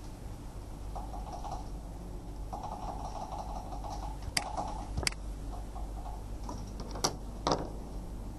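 Sharp clicks from a computer mouse and from the plastic diagnostic interface and its cable connector being handled: two clicks about four and five seconds in, then a click and a short rattle near the end. Stretches of soft rapid ticking come in between, over a steady low electrical hum.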